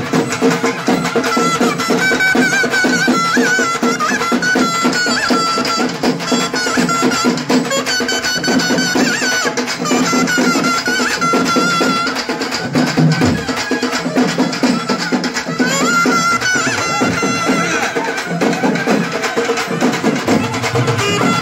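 Traditional Tamil temple music: a wind instrument plays a wavering melody over a steady drone, with dense, continuous drumming.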